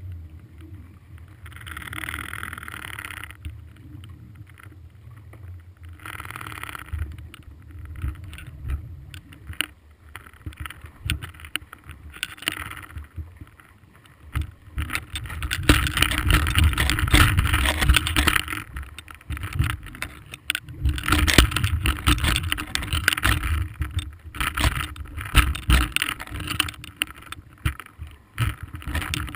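Muffled underwater sound picked up through a camera housing: a low rumble of moving water with many knocks and clicks, over a faint steady hum. It grows louder in stretches, most of all about halfway through.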